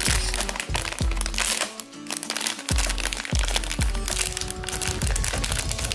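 A plastic foil blind-box bag crinkling as hands pull it open, over background music with a bass beat.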